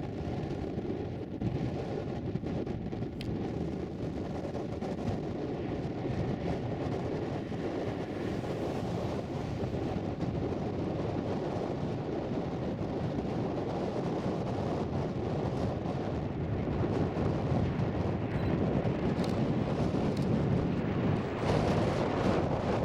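Jet engines of a Boeing 777-200ER airliner, a steady rumble with a faint whine in it, growing gradually louder over the last few seconds.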